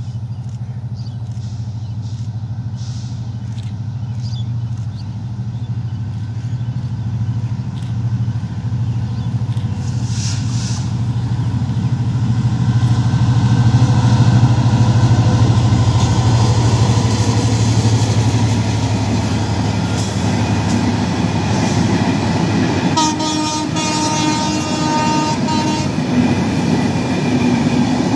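Diesel-electric locomotive of the Nilsagar Express drawing near and passing, its engine drone growing louder for about the first half, then the rolling clatter of its passenger coaches on the rails. A train horn sounds for about three seconds near the end.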